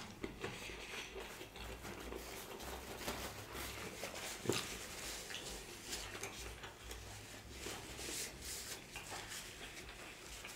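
Close-miked chewing of seafood birria tacos: faint wet mouth sounds and small clicks, with one sharper click about four and a half seconds in.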